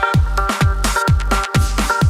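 Background electronic dance music: a steady beat of deep kick drums, about two a second, under held synth chords.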